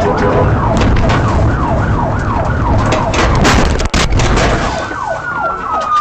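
Police patrol car siren on yelp, rapid falling sweeps about three a second, over loud engine and road noise from the pursuing car. The sound drops out briefly about four seconds in, and a slower, long falling wail starts near the end.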